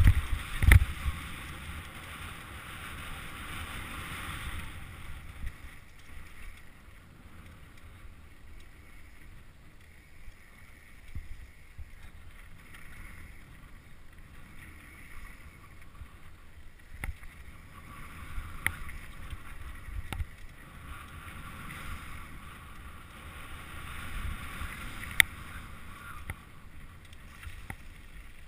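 Santa Cruz V10 downhill mountain bike riding down a rough dirt trail: tyres rolling over dirt and stones and wind rushing over the microphone, which is louder for the first four seconds or so. Sharp knocks and rattles from bumps are scattered throughout; the loudest comes about a second in, and another sharp one near the end.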